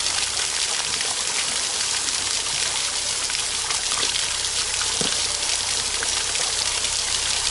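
Water at full pump flow gushing out of and over a clear acrylic test tank and splashing down onto a wooden board: a steady rushing and splattering.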